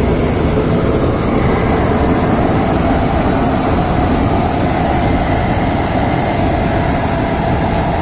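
Tractor-mounted combine harvester (Standard TSC-5B on a John Deere 5310 tractor) running steadily under load as it cuts and threshes tall white country corn, the engine and threshing gear making a loud continuous mechanical noise with a faint steady whine.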